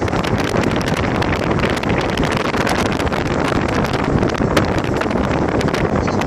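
Wind buffeting the phone's microphone: a loud, steady rushing noise broken by many small crackles.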